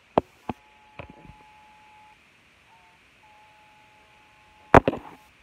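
Steady electronic beeping tones: one held about two seconds, a short wavering blip, then another held about two seconds. Light clicks come near the start, and a sharp knock comes near the end.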